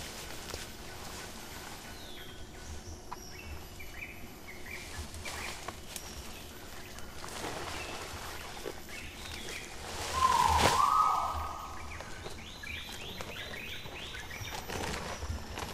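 Sumatran rhinoceros browsing in dense undergrowth: leaves rustling and twigs crackling, with small bird chirps. About two-thirds of the way through, one loud animal call of about a second and a half, a short dip in pitch and then a held tone, followed by a quick run of about six descending chirps.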